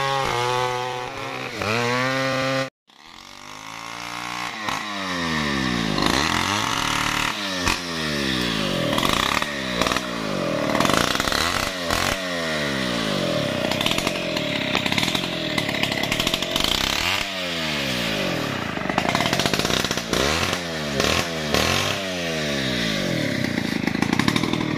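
Large MS070 two-stroke chainsaw running and cutting wood, its engine pitch rising and falling over and over as the throttle is opened and eased. The sound cuts out sharply for a moment about three seconds in, then picks up again.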